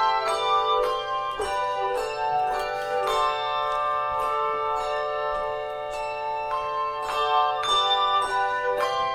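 A handbell choir playing a tune: bells struck in quick succession, several notes ringing on together as chords.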